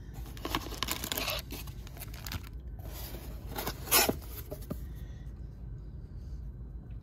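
Hands rummaging in a cardboard box and pulling out sealed trading-card packs: bursts of rustling and crinkling paper, wrapper and cardboard, the loudest a sharp crinkle about four seconds in.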